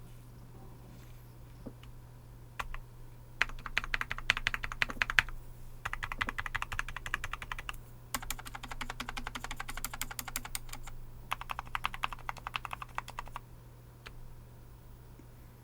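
Fast typing on a Skyroong GK68XS keyboard with a polycarbonate plate and Cherry MX Silent Red linear switches. A few single keystrokes come first, then four quick runs of rapid keystrokes with short pauses between them.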